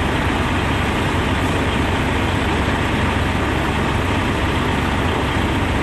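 Semi truck's diesel engine running steadily at low revs while the clutch is eased out for slow backing.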